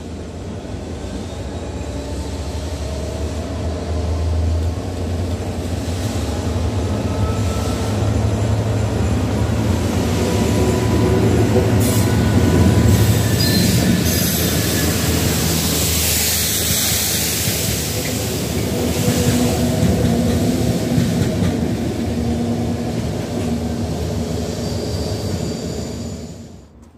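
A freight train of tank wagons runs through a station at speed. A steady low engine drone builds into the loud rush and rattle of the wagons' wheels on the rails, loudest about midway, with a few thin high squeals, then cuts off suddenly near the end.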